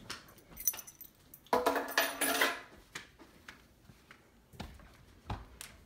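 Footsteps going up carpeted stairs, with handling noise from the phone. The loudest part is a brief burst of clinking and rustling about one and a half seconds in, followed by a few dull thuds of steps near the end.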